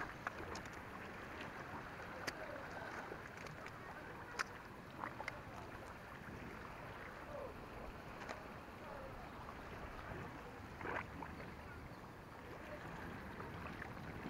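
Calm sea water lapping and sloshing against shoreline rocks, with a few sharp clicks and knocks scattered through it.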